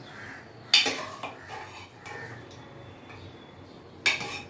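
Steel ladle clanking against a metal pressure cooker and a steel bowl as boiled jackfruit pieces are scooped out. Two sharp, ringing clanks come, one a little under a second in and one near the end, with lighter knocks between.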